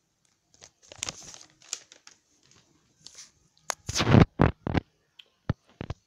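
Handling noise: irregular rustling and scratching, with a cluster of loud knocks about four seconds in as the phone camera is swung round and brushes against a fabric blanket.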